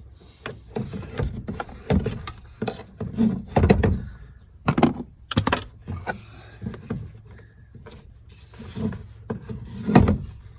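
Irregular clicks, knocks and rattles of plastic and metal parts being pried and worked loose inside a Ford F150 truck door during disassembly, with two louder knocks about four seconds in and near the end.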